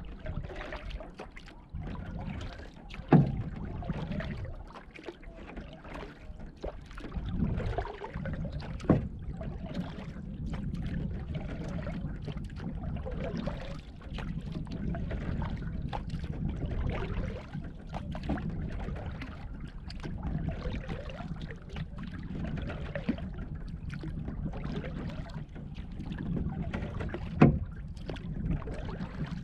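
Canoe being paddled on calm water: paddle strokes through the water and water washing along the hull, with a few sharp knocks, the loudest about three seconds in and near the end.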